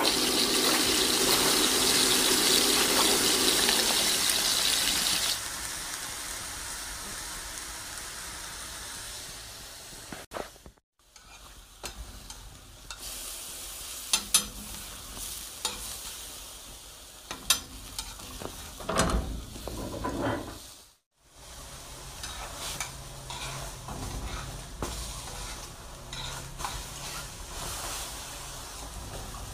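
Food sizzling and frying in hot oil in a pan, loudest for the first few seconds, with utensils stirring and scraping against the pan. The sound cuts off abruptly twice.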